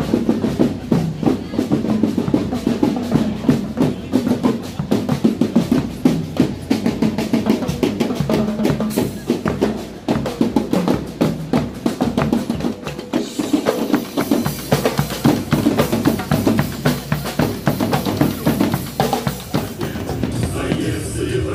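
Drum kit playing a fast, steady rhythm of snare and bass-drum strokes with snare rolls.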